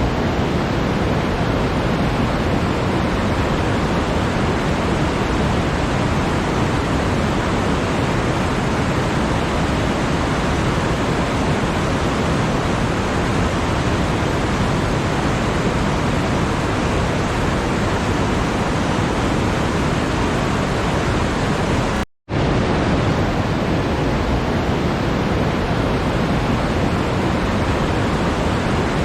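Steady, even rushing noise with no pitch or rhythm, broken once by a split-second silent gap about 22 seconds in.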